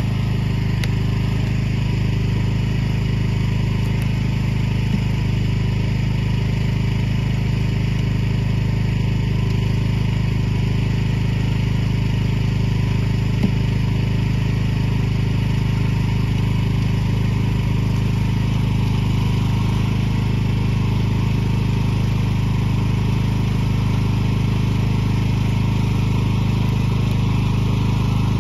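An engine idling steadily: a loud, even, low hum that holds the same pitch and level throughout.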